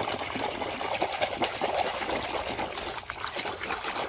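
Water splashing and trickling as muddy toy vehicles are washed by hand in a tub, with many small, quick knocks of the toys against each other and the tub.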